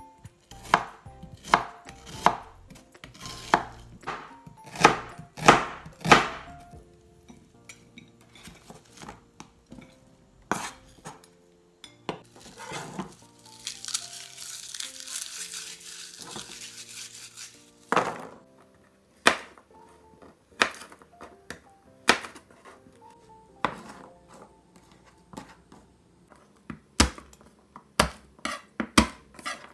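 Kitchen knife cutting onion and garlic on a plastic cutting board: quick sharp knocks of the blade on the board, dense at first, sparser in the middle and quick again near the end. In the middle comes a few seconds of papery rustling as a garlic clove is peeled, with faint background music under it all.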